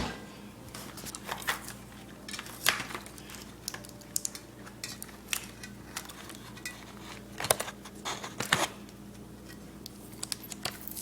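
Scissors cutting toy packaging while hard plastic pieces are handled, giving irregular sharp clicks and clatters.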